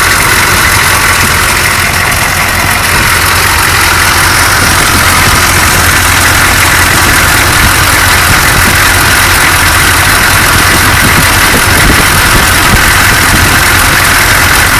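Chevrolet Suburban's V8 diesel engine idling steadily, heard up close in the open engine bay.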